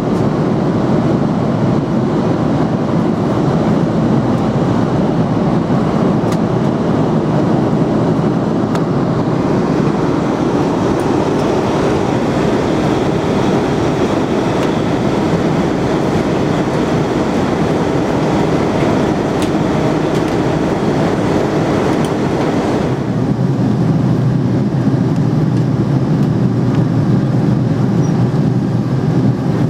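Cabin noise of an Airbus A300B4-600 in flight: a steady roar of engines and airflow heard inside the passenger cabin. Its tone changes about two-thirds of the way through, becoming a little deeper and duller.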